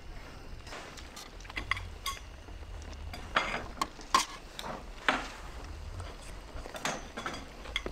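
Chopsticks stirring and lifting noodles in a stainless steel mess tin, with scattered clicks and clinks as they knock against the metal.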